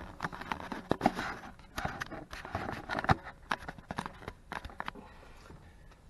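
Handling noise: a quick run of clicks, knocks and scraping from someone moving about and handling things, dying down about five seconds in.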